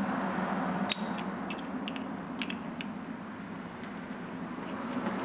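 Small metal parts of a Rolls-Royce Silver Cloud III steering ram clicking and clinking as they are handled and fitted by hand, with one sharper ringing metallic click about a second in and a few lighter ticks after, over a steady low hum.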